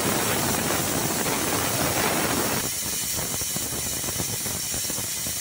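Pressure cooker's first whistle: steam blowing out under the weighted valve with a loud, steady hiss that, about halfway through, breaks into a rapid sputter. The sound means the cooker has come up to full pressure.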